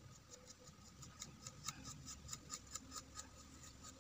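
Faint, irregular light ticks and taps, several a second, starting about a second in: a flat paintbrush working a second coat of acrylic paint onto a glass jam jar.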